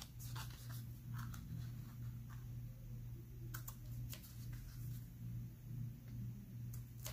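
Faint snips and clicks of scissors cutting the ends of a ribbon at an angle, a handful of separate cuts, over a steady low hum.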